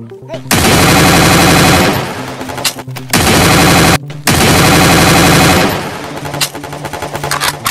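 Rapid automatic gunfire in three long bursts, the second one short, followed by a couple of single shots near the end.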